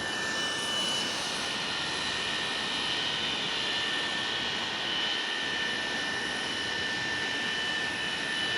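Kawasaki C-1 transport's turbofan jet engines running steadily, a broad rush with a high, even whine.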